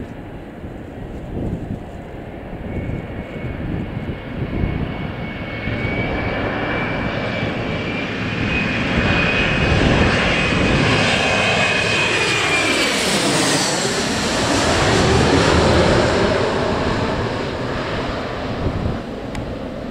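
Airliner passing low overhead on approach or departure. Its engine noise builds over several seconds, with a steady high whine, peaks as it passes over about two-thirds of the way through, then starts to ease off.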